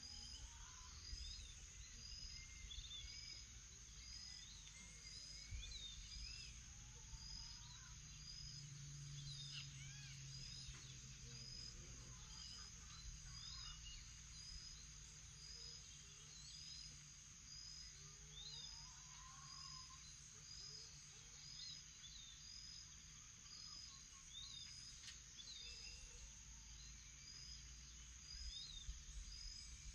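Faint morning chorus of birds calling and singing, one of them repeating a short high note about once a second. Underneath are a steady high insect drone and a low rumble.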